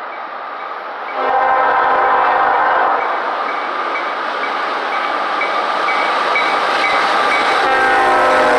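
Air horn of a BNSF GE ES44AC diesel locomotive leading a freight train: the horn cuts in loud about a second in, eases, and swells loud again near the end as the locomotive draws level, over the rumble of the approaching train. A bell dings about twice a second underneath.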